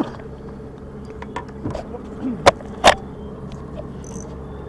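Steady low engine hum, with two sharp knocks about half a second apart midway through.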